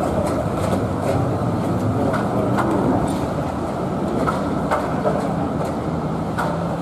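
Melbourne B2-class articulated electric tram running along street track toward the listener: a steady rumble of wheels and running gear, with a few brief sharp clicks.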